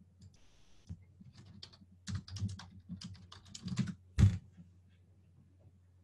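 Typing on a computer keyboard: several quick runs of keystrokes entering a search, then one louder key strike about four seconds in, over a faint low hum.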